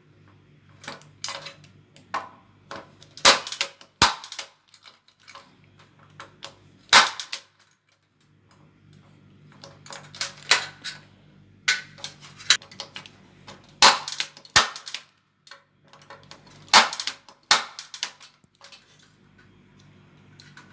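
Impact punch-down tool snapping as it seats and trims wires into a Cat 6 patch panel's terminals: a string of sharp snaps at irregular intervals, with a pause about seven seconds in. A faint low hum runs underneath.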